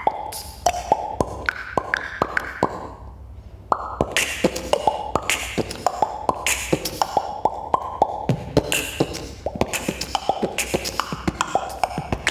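A boy beatboxing: fast mouth-made drum patterns of sharp clicks, kick-like thumps and hissing snare and hi-hat sounds, with short pitched vocal sweeps. The beat drops back briefly about three seconds in, then picks up again.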